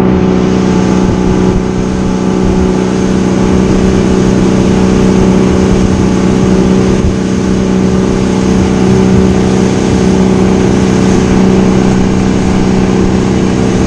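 300-horsepower outboard motor running at speed, heard up close from the stern, holding a steady pitch over the constant rush of the boat's wake.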